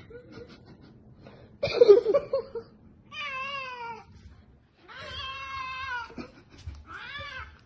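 A cat meowing in about four drawn-out yowls of wavering pitch, the first the loudest.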